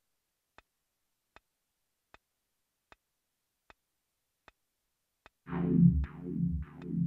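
Novation Circuit groovebox: faint, evenly spaced ticks about every three-quarters of a second, then about five and a half seconds in a loud pulsing synth bass pattern with a hissy top comes in, repeating about twice a second.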